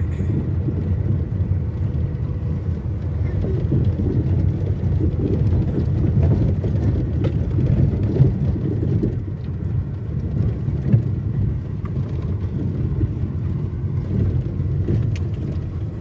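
Car driving slowly on a rough dirt track, heard inside the cabin: a steady low rumble of engine and tyres, with a couple of brief knocks past the middle.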